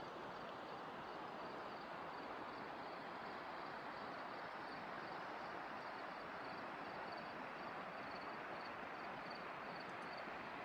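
Faint cricket chirping, an even pulse of about three chirps a second, over a steady low hiss.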